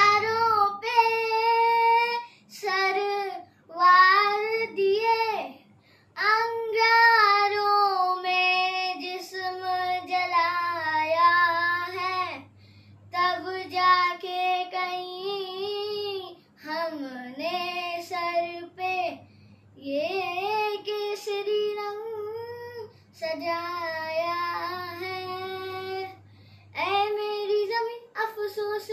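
A child singing a Hindi patriotic song alone, without accompaniment, in long held phrases broken by short pauses for breath.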